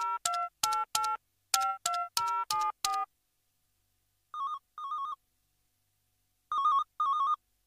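Mobile phone keypad tones: about nine quick beeps as a number is dialled. After a pause comes a warbling electronic ring in pairs of short trills, the second pair louder near the end.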